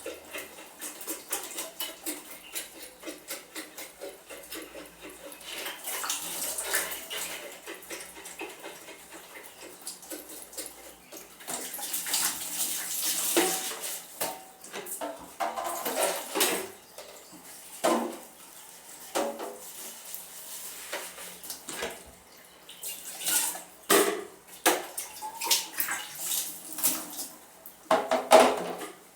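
Dishes and cutlery being washed by hand in a basin of standing water: water sloshing and splashing, with plates and utensils clinking and knocking together throughout, and a longer stretch of splashing midway.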